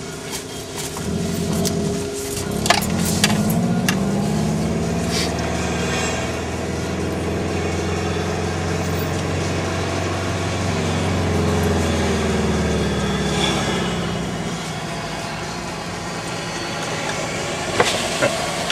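Car engine heard from inside the cabin, accelerating hard: a couple of quick rises and gear changes, then one long pull with the pitch climbing steadily, before it eases off and drops back about two-thirds of the way through. A few sharp clicks sound about three seconds in and again near the end.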